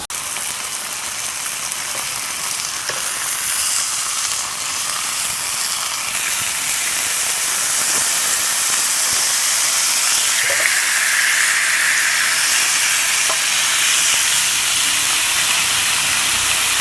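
Steak sizzling in a hot grill pan after being turned, a steady frying hiss that swells a little after the first few seconds, with a few faint ticks of fat spitting.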